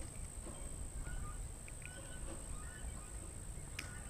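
Faint outdoor background: scattered short bird calls over a steady high-pitched hum and a low rumble.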